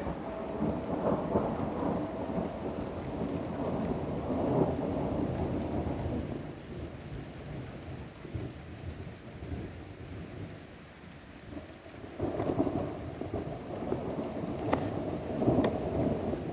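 Thunder rumbling over steady rain. One long roll fades about six seconds in, and a second roll builds about twelve seconds in.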